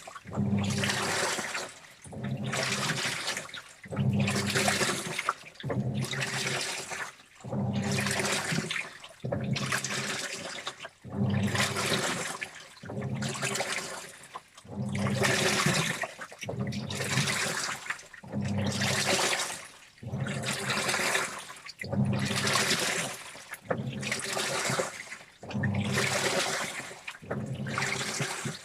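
Washing machine mid-wash: water sloshing around the turning drum in regular surges about every two seconds, each with a low motor hum.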